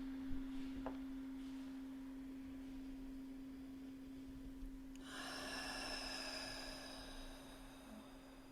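A tuning fork ringing with a steady, pure tone used for sound healing. About five seconds in, a brief shimmering, hissy sound joins it and fades away over a couple of seconds.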